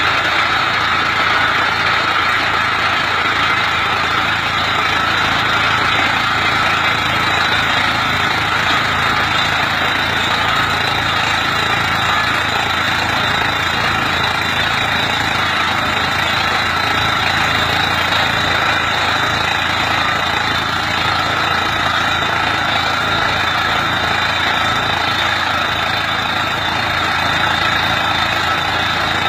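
Tractor engine running steadily, driving a tractor-mounted water well drilling rig's hydraulics through the PTO: a constant mechanical drone with a hissy upper band that does not change.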